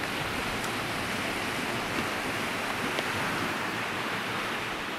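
Sea surf washing onto the beach: a steady rushing noise, with a couple of faint ticks about two and three seconds in.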